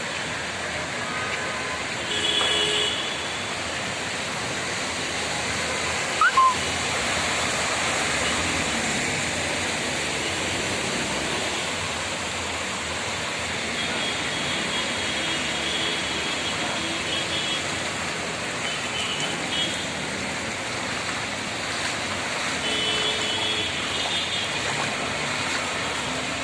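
Heavy rain and running floodwater making a steady continuous hiss, with a short sharp knock about six seconds in.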